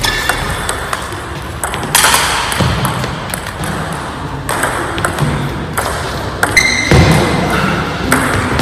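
Table tennis ball clicking back and forth off bats and table in fast rallies, with irregularly spaced sharp hits. A short high squeak sounds about three-quarters of the way through.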